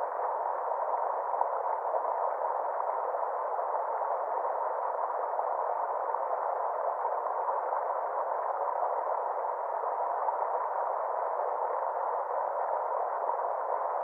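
Small stream spilling over a rock step: a steady, unbroken rush of water, narrow and muffled, with neither deep nor high parts.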